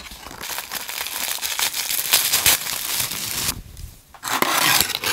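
Close-miked paper packaging rustling and crinkling as a cardboard box is opened and its contents unwrapped, in one long stretch, a brief pause a little before four seconds in, then another burst.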